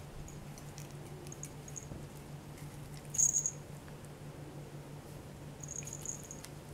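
Small jingle bell on a cat's collar tinkling in short, high-pitched jingles as the cat swats and jumps at a wand toy. The loudest jingles come about three seconds in and again near the end, over a low steady hum.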